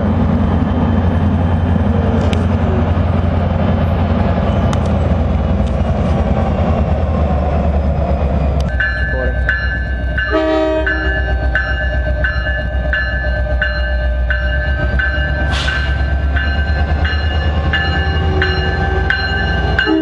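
NJ Transit PL42AC diesel locomotive approaching and passing close by, its engine running with a deep steady drone. From about nine seconds in, its bell rings steadily about once a second, and a short horn blast sounds around ten seconds in.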